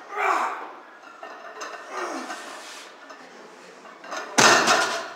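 Gym shouts and yells during the second rep of a heavy barbell deadlift: short bursts of shouting near the start and about two seconds in, then a very loud yell about four and a half seconds in, as the bar reaches lockout.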